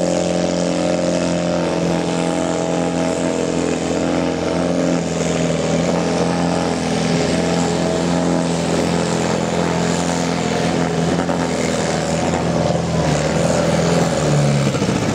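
A diesel farm tractor's engine, a New Holland, running flat out under heavy load as it drags a pulling sled, with a steady loud engine note. Its pitch wavers and sags a little near the end as the sled's weight bogs it down.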